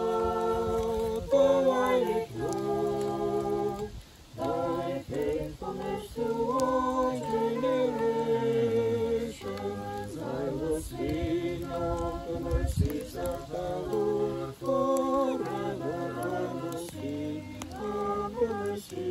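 Voices singing a campfire song a cappella, with no instruments, holding notes between short breaks.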